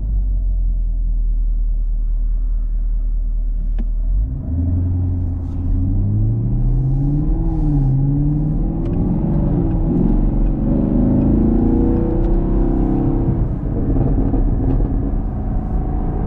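A 2021 Camaro SS's 6.2-litre V8 idling with a deep, steady burble. About four seconds in it is floored, and the pitch climbs, drops back and climbs again through several gears. A few faint sharp cracks come from the exhaust.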